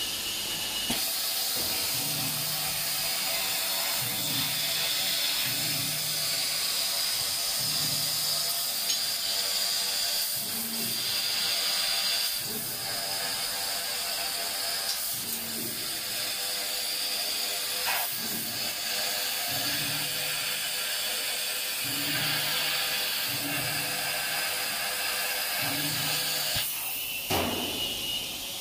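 Tube laser cutter cutting a rectangular steel tube: a steady hiss from the cutting head, with a low hum from the machine's motors coming and going every second or two. The hiss stops near the end with a knock.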